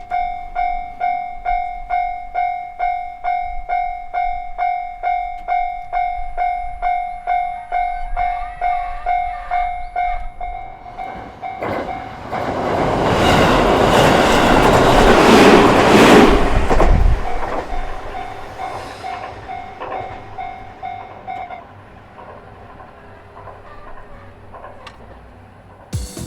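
Japanese railway level-crossing warning bell ringing in a steady electronic ding-ding, about two strikes a second. About halfway through, a JR Minobu Line train passes over the crossing, building to its loudest and then fading. The bell rings on a few seconds longer and stops.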